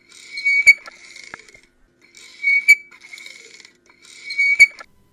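Sound-effect sting: a high, whistle-like tone that swells and breaks off three times, about two seconds apart, with a sharp click at the peak of each swell.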